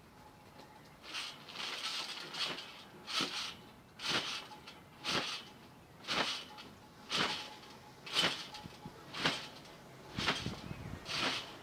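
A person bouncing on a trampoline, about one bounce a second, each landing giving a short burst of mat and spring noise.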